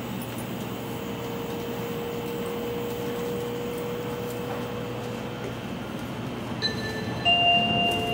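Interior running noise of a Sanyo Shinkansen Nozomi under way, a steady rumble and hiss with a faint steady hum that fades out past the middle. Near the end, the onboard chime melody that comes before an announcement begins to play.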